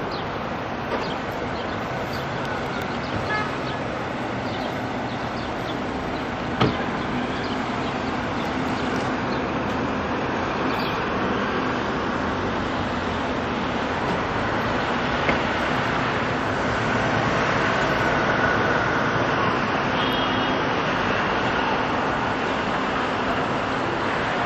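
City street traffic: a steady wash of cars driving past, with a sharp knock about six seconds in.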